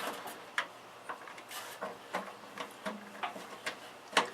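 Small plastic clicks and taps from SATA cables and connectors being handled and routed inside a PC case, scattered and irregular, with one sharper click near the end.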